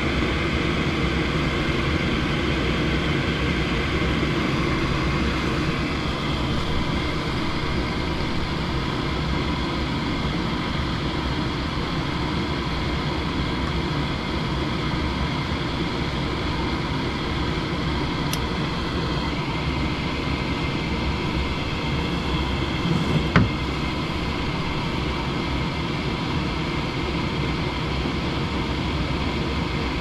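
Gas furnace's induced-draft motor starting and running steadily, with the pressure switch bypassed by a jumper wire during testing of a switch stuck closed. A single brief thump about 23 seconds in, as the burners light.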